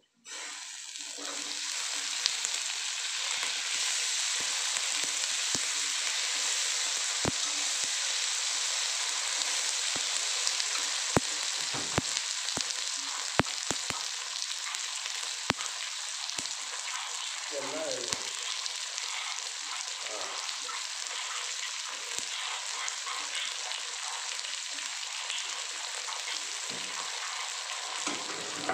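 Red chillies dropped into hot oil in a stainless steel wok, setting off a sudden, loud sizzle that carries on steadily as they fry. A metal spatula clinks and scrapes against the wok now and then.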